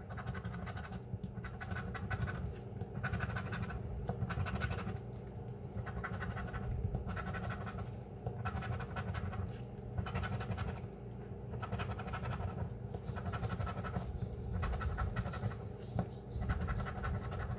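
A coin scraping the coating off a scratch-off lottery ticket in repeated short strokes, with brief pauses between them.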